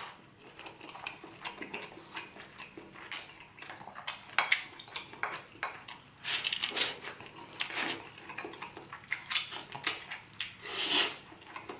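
Close-up eating sounds of seafood paella: a spoon clinking and scraping on a ceramic plate, mixed with chewing, sucking and wet mouth smacks as rice and shellfish are eaten. The sounds come as a string of short clicks and smacks, with louder clusters about six seconds in and near the end.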